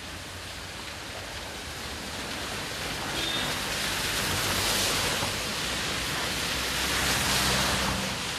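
Tyres hissing through water on a wet road as vehicles pass, the hiss swelling twice, about halfway through and near the end, with a low engine hum under the second swell.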